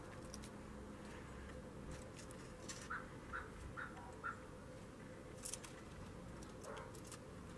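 Quiet handling sounds of sweets being pressed onto a gingerbread model on aluminium foil: a few faint crinkles and taps. About three seconds in come four short high chirps in quick succession.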